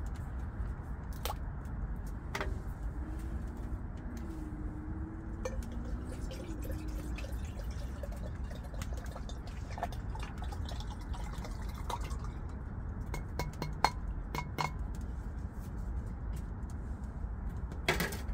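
Liquid poured from a glass bottle into a small metal kettle, the filling sound rising in pitch a few seconds in. Light clinks of glass and metal follow, and a louder clank near the end as the kettle is set down.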